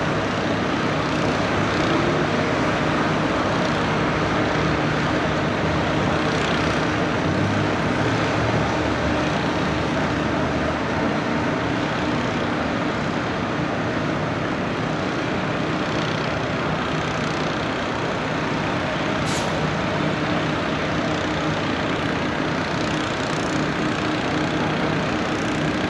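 Heavy diesel engine of an excavator-mounted drill running steadily under load, with one brief sharp click about three quarters of the way through.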